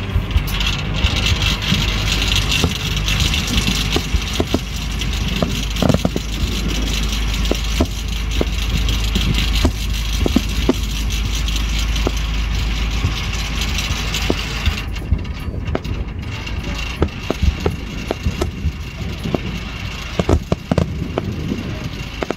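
Fireworks going off: many sharp pops and bangs at irregular intervals over a steady low rumble, with a high hiss that drops away about fifteen seconds in.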